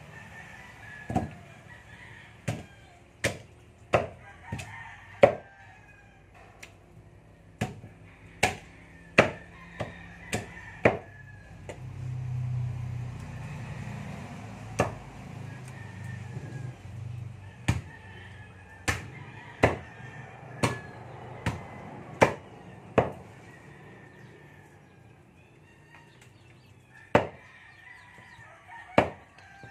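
Meat cleaver chopping raw pork: sharp, irregularly spaced chops, a couple of dozen of them, with short gaps between bursts.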